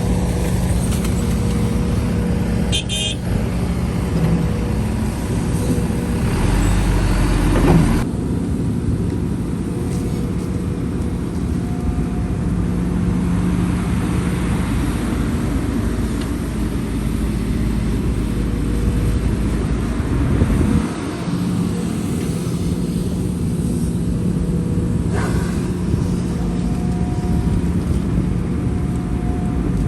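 Heavy diesel engines of an excavator and dump trucks running steadily, the engine note changing a few times as the machines work.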